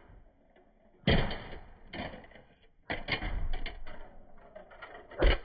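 Toy cars hitting the floor and tumbling: a string of sharp knocks and rattles, loudest about a second in and again near the end.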